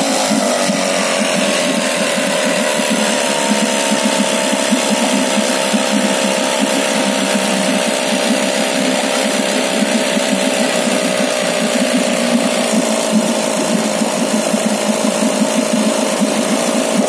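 Tohatsu outboard motor running steadily at low speed on its overhauled carburettor, its revs settling right at the start.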